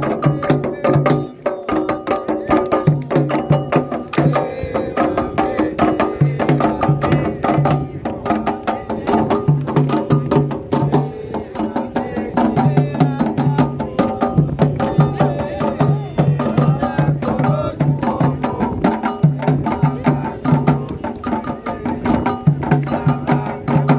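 Candomblé toque played on atabaque hand drums with a struck bell keeping a fast, steady rhythm, and voices chanting over the drums. A low drum tone recurs in short groups of strokes every couple of seconds.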